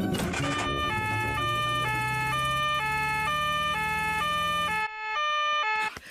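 Cartoon emergency-vehicle siren, a high note and a low note alternating about twice a second, over a car engine's low hum; the engine cuts out about five seconds in while the siren sounds a moment longer.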